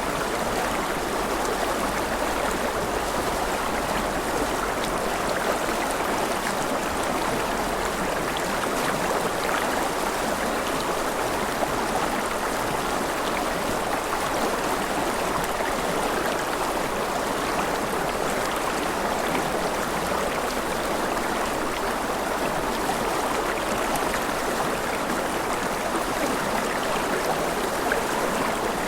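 Steady gentle rain, an even rushing hiss without breaks.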